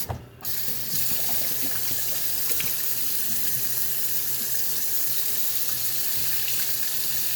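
Hot water running steadily from a sink tap into the clean-water tank of a Bissell mopping vacuum cleaner, with a short break about half a second in.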